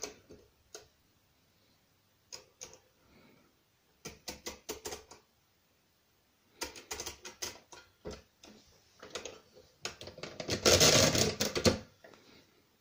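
Brunsviga pinwheel mechanical calculator: its setting levers clicking into place in several short runs of rapid clicks, then near the end the hand crank is turned, a loud clattering run of about a second and a half as the machine works the subtraction.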